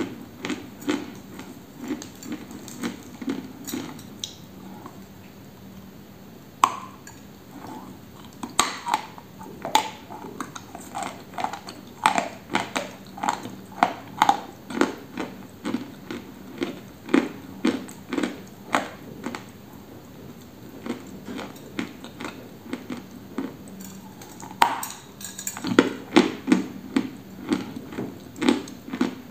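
Biting and chewing a dry chunk of white edible clay: crisp crunching chews about twice a second, with a sharper snap as a fresh piece is bitten off about a quarter of the way in and again near the end.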